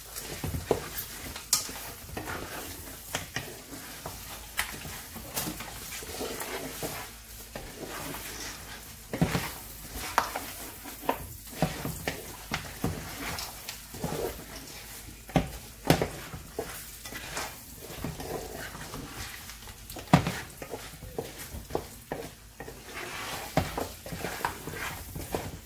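Wooden spoon stirring and scraping meat and tomato paste in an aluminium pot, with irregular knocks of the spoon against the pot over the sizzle of the food frying in oil.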